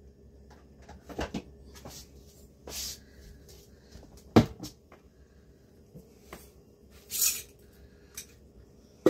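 Scattered kitchen clatter from cupboards and items being handled: a few knocks and clicks, the loudest about four and a half seconds in, and a short rustle about seven seconds in.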